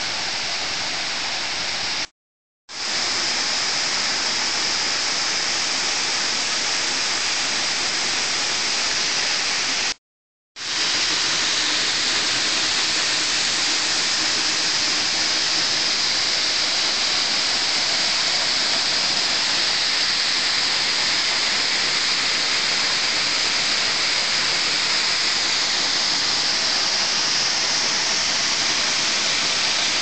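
Waterfall pouring onto rock, a steady dense rush of falling water, running full after recent rain. The sound cuts out briefly twice, about two seconds in and again about ten seconds in.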